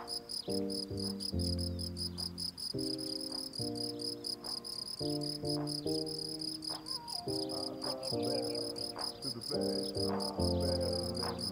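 Crickets chirping in a steady, even pulse over soft background music of sustained chords that change every second or so.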